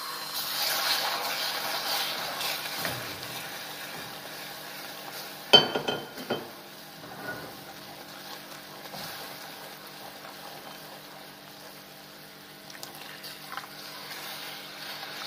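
Hot dry-cooked caramel sizzling as water is poured into it in a metal saucepan and stirred with a wooden spatula; the sizzle is loudest in the first few seconds and then settles to a quieter bubbling. A single sharp clack about five and a half seconds in.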